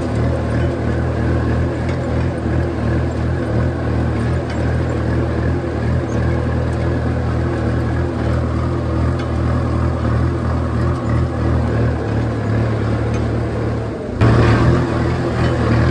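Kubota M6240 tractor's four-cylinder diesel engine running steadily under load while pulling a disc plow through the soil. About fourteen seconds in the sound abruptly gets louder.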